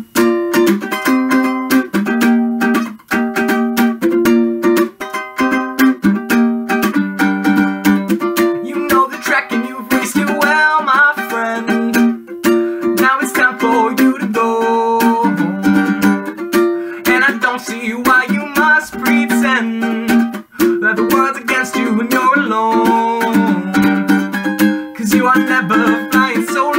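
A mandolele strummed in a steady rhythm, playing repeated chords as the instrumental opening of a song.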